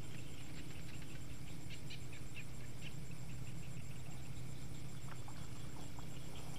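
Night insects calling in a steady, rapidly pulsing high drone, with scattered short chirps and clicks and a steady low hum underneath.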